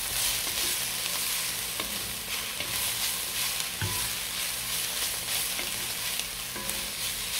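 Chopped spinach, carrot, pumpkin and onion sautéing with a steady sizzle while a wooden spatula stirs them round an enamelled pot. The spatula scrapes the pot, with one sharper knock about four seconds in.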